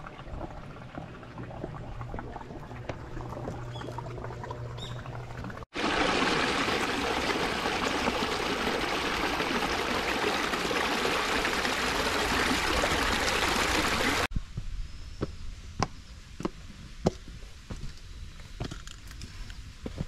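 Steady rushing of running water, loud and even, for about eight seconds in the middle, cut in between quieter outdoor stretches. Before it, a low hum with a few short bird chirps; after it, scattered sharp clicks and faint bird chirps.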